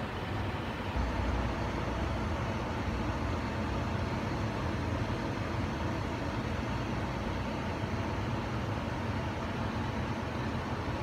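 A steady low rumbling hum under an even hiss, with no distinct events: constant machine-like background noise.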